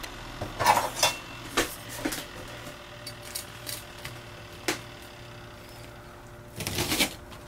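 A steel cleaver knocking a few times on a wooden cutting board, then crunching down through a crisp toasted croque monsieur near the end.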